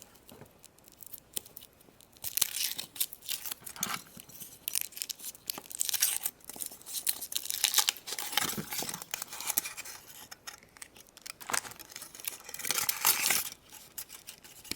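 Foil wrapper of a Kinder Egg being torn and crinkled off in irregular bursts of rustling, with a short pause partway through.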